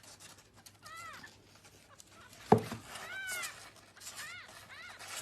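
Kitten mewing: about five short, high mews that rise and fall in pitch, spread through the few seconds. A sharp knock sounds about halfway through and is the loudest thing.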